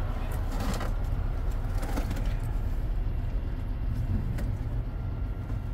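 Steady low outdoor rumble with a few brief clicks, about half a second, two seconds and four and a half seconds in.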